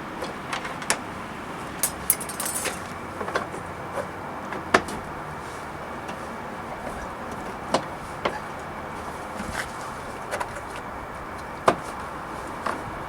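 Irregular sharp clicks and taps of hands working a trailer wiring harness and a coat-hanger fish wire against the car's body, over a steady hiss.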